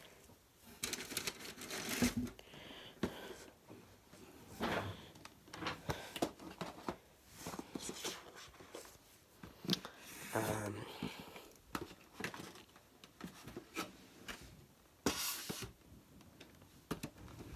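Cardboard and packing material rustling and crinkling in scattered bursts as boxed model airliners are lifted out of a shipping box, with one louder rustle near the end.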